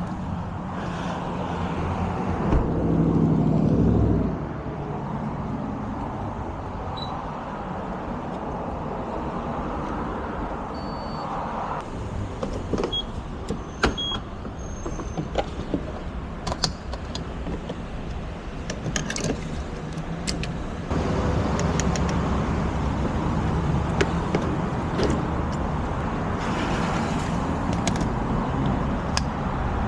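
BMW 330i (G20) being driven, its 2.0-litre turbocharged four-cylinder running under steady road noise. The engine swells briefly a few seconds in as it accelerates, then runs louder again from about two-thirds of the way through, with scattered light clicks.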